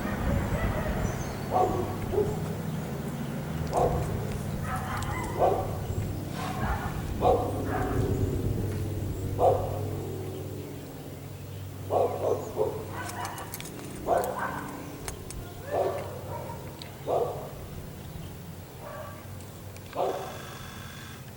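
A dog barking repeatedly, single barks every second or two, over a low steady hum that fades away.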